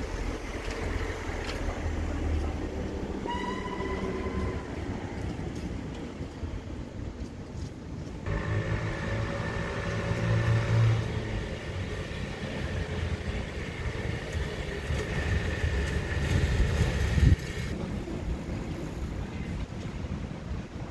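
Heavy vehicle noise: a steady low engine rumble, a short high tone about three seconds in, and a steady high whine from about eight seconds in that cuts off near eighteen seconds, just after a sharp knock.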